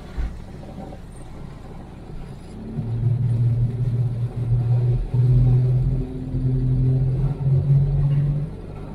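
A Jeep on snow tracks driving, heard from inside the cab. A quieter low rumble gives way about three seconds in to a loud, low drone that climbs slightly in pitch in a few steps.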